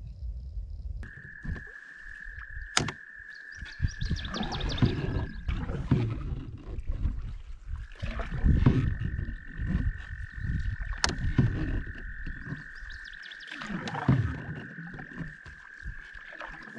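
A frog's long, steady, high trill, held for about four seconds, then starting again about eight seconds in and running on for about ten seconds. Low thumps and a couple of sharp knocks from people and gear moving close by sound beneath it.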